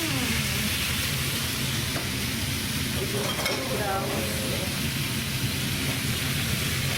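Steady sizzling hiss of food frying, with a low hum underneath.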